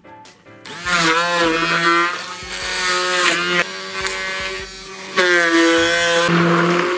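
Hand-held immersion blender starting up about a second in and puréeing chunks of watermelon. The motor's pitch sags and recovers several times as the blade bites into the fruit, with a few dips in loudness between spells.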